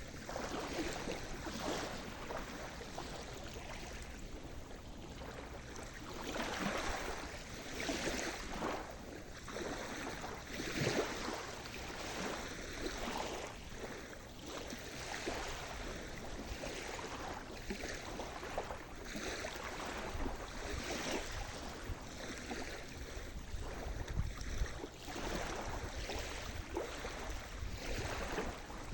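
Sea surf: small waves washing and breaking on the shore, one after another, with a rise in the wash every second or two and steady low wind rumble underneath.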